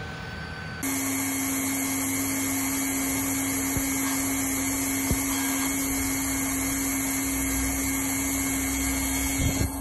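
LIUDU TOP3400C hot-air PVC welding machine running, its heat-gun blower giving a steady whirring hiss with a constant hum. The sound comes in abruptly about a second in, with two faint ticks near the middle.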